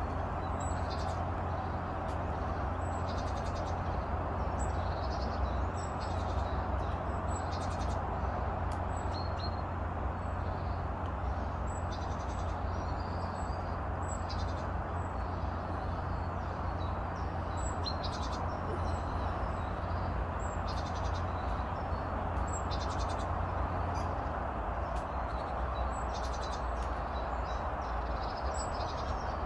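Steady outdoor rushing noise with short high bird chirps every second or two.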